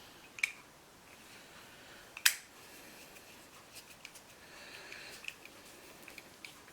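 Small sharp clicks and taps of model-kit parts being handled and fitted by hand: one click early, a louder one about two seconds in, then a run of lighter ticks with faint scraping.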